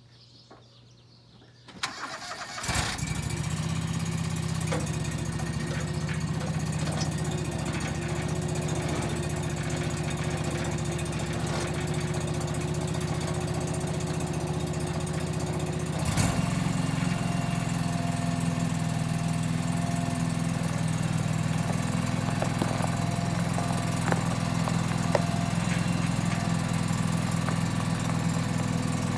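John Deere 445 lawn tractor's liquid-cooled Kawasaki V-twin engine cranked by the starter and catching about two seconds in, then running steadily. About halfway through, its note changes and it runs a little louder.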